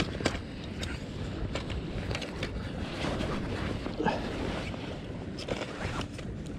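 Wind rumbling steadily on the microphone at the seashore, with scattered light clicks and knocks of handling throughout.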